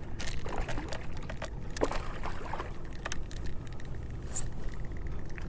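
Handling sounds on a kayak while a caught fish is checked: scattered clicks and knocks with water trickling, and a few short squeaks about two seconds in.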